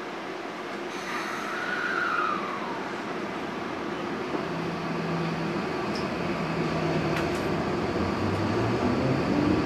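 Tokyo Metro 18000 series train pulling away, heard from inside the car: the Mitsubishi full-SiC VVVF inverter and permanent-magnet synchronous motors give steady low tones a few seconds in, which step and begin to rise in pitch near the end as the train gathers speed. A brief falling tone sounds about a second in.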